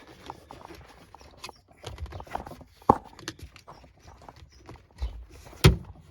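Hard plastic console trim being pried and worked into place, with scattered clicks and knocks and two sharp snaps, one about halfway through and a louder one near the end.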